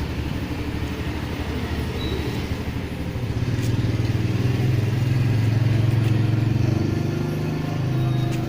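A motor vehicle's engine running in road traffic, growing louder and higher about three seconds in, then easing near the end.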